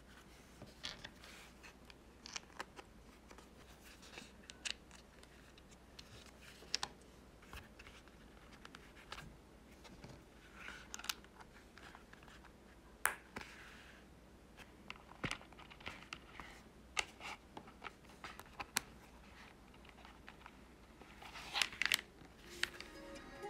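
Hands handling a leather wallet piece and pressing small metal snap-fastener parts into its holes: soft leather rustling and scraping with scattered small clicks, a few of them closer together near the end.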